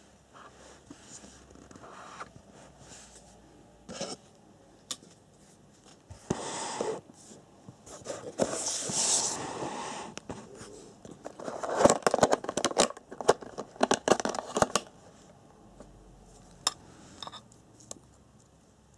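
Hands working on an RC car's chassis and wiring: short spells of rustling and scraping, then a run of quick clicks and knocks about midway through, the loudest part.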